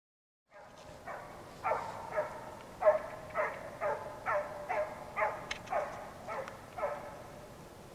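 Petit basset griffon vendéen hound baying in a steady run of short barks, about two a second, each dropping in pitch, starting about half a second in. The hound is giving tongue on a scent trail.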